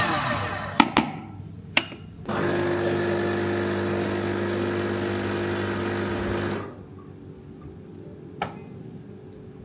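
A few sharp knocks of metal coffee tools, then a small electric motor of a coffee appliance hums steadily for about four seconds and cuts off, followed by one more light knock.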